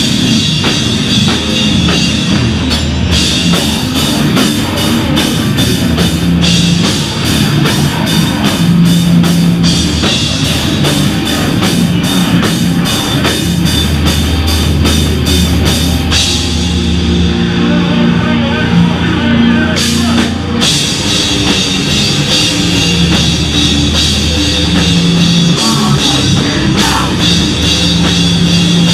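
Live heavy hardcore band playing at full volume: distorted electric guitar and bass over a drum kit, with long runs of fast, even drum and cymbal hits. The cymbals thin out past halfway and there is a brief break about two-thirds through before the band comes back in.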